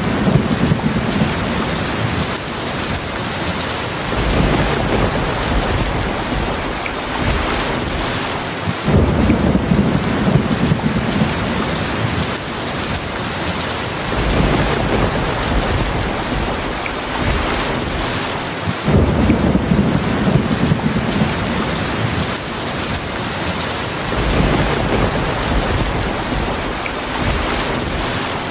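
Heavy rain falling steadily, with low rolling thunder rumbles swelling in about every five seconds.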